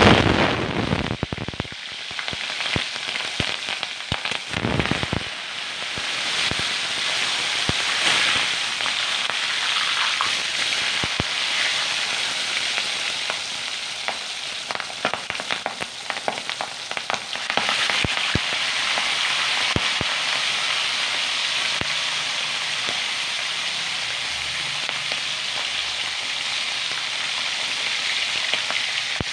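Marinated pork belly slices hitting hot oil in a wok and deep-frying: a sudden loud sizzle with sharp crackling and popping, settling into a steady frying hiss that swells again a little past halfway.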